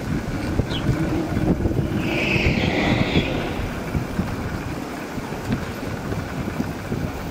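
Sped-up city traffic and road noise from a tricycle ride: a steady rumble with wind buffeting the microphone and small knocks, and a brief hissing noise from about two to three seconds in.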